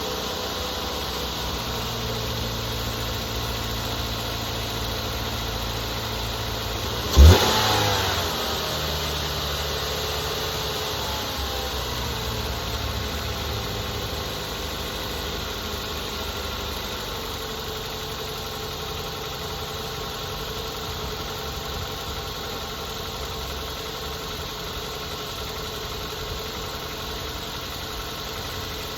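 A 2008 Mazda 3's 2.3-litre DOHC 16-valve four-cylinder engine idling steadily on new coil packs and spark plugs, running nice and quiet with the cylinder-three misfire apparently cured. About seven seconds in there is a sharp, loud burst, and the engine speed rises briefly and settles.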